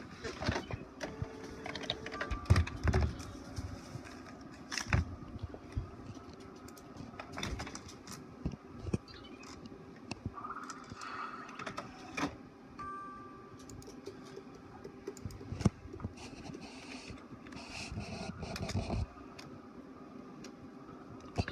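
HP Officejet 4500 all-in-one inkjet printer working, with irregular clicks and knocks from its mechanism and short whirs. A steadier whir cuts off suddenly about 19 seconds in.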